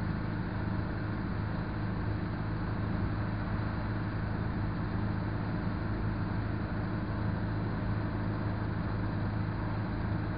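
Steady engine hum and road noise inside the cabin of an old Izh Moskvich car cruising at an even speed.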